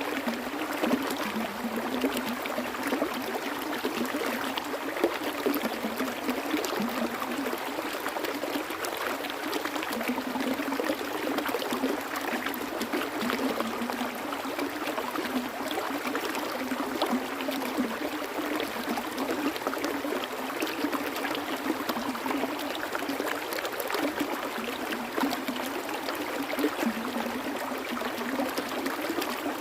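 Running water of a stream flowing steadily: a constant babble of small splashes and gurgles, with little deep rumble.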